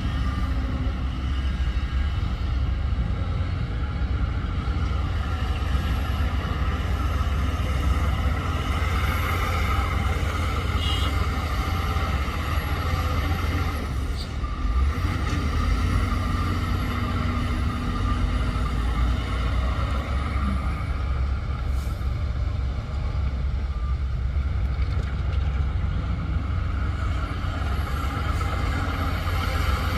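Heavy diesel earthmoving machinery running steadily under load: a deep, continuous engine rumble with a steady higher mechanical hum over it.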